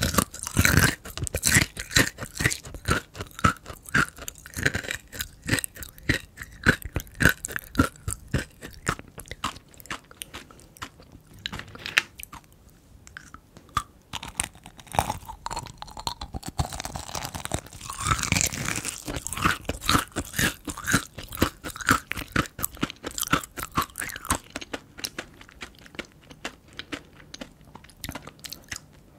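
Close-miked chewing of kohakutou, Japanese crystal jelly candy: its crisp sugar crust crunching and crackling between the teeth in rapid clicks, thinning out near the end.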